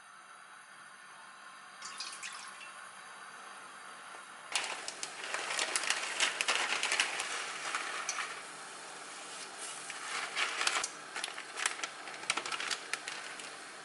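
Water poured into a hot frying pan, starting suddenly about four and a half seconds in, then hissing and bubbling at the boil. Near the end, dry rice noodles going into the water add crackling and rustling.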